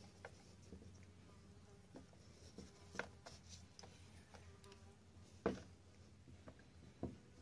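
A few faint clicks and light taps of metal as the chain is lifted on the bar and the tensioning screw of a Ryobi 50cc chainsaw is turned with a screwdriver tool, loudest about five and a half seconds in; otherwise near silence.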